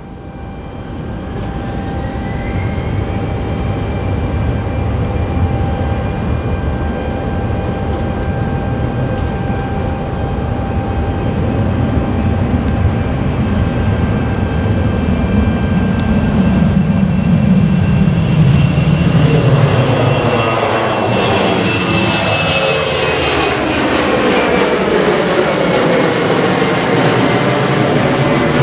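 Jet airliner's engines: a steady whine, with one tone rising in pitch in the first couple of seconds. The sound then grows louder and fuller as the aircraft passes close, with a sweeping, swishing tone through the last third.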